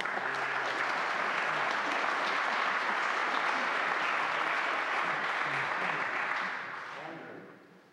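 Audience applauding. The applause starts at once, holds steady for about six seconds, then dies away.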